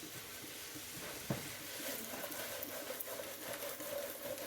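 Food sizzling and crackling as it fries in hot oil in a pan, with a single knock about a second in.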